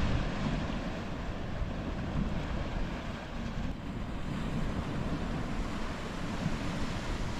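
Wind buffeting the microphone over the steady wash of sea waves breaking on rocks below.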